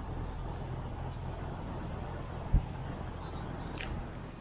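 Steady low rumble of idling diesel trucks. A single sharp thump comes about two and a half seconds in, and a brief high squeak follows near the end.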